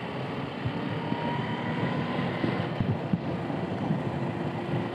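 Wind and road noise from riding an electric scooter being towed at about 25 to 35 km/h, a steady rush with a faint high whine over it, growing slightly louder as the speed rises.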